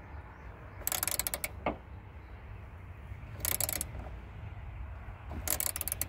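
A 1/4-inch ratchet clicking in three short bursts of rapid clicks as it gently snugs down a 7 mm bolt.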